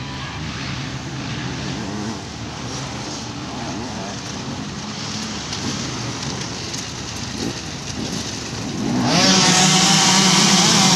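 Dirt bike engines revving on a race track, single bikes rising and falling in pitch at moderate level. About nine seconds in, a much louder, steady mass of engine noise from a pack of dirt bikes sets in and holds.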